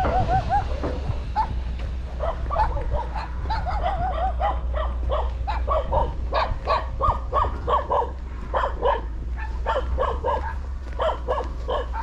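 A dog barking and yipping over and over in short, high calls, several a second, over a steady low hum.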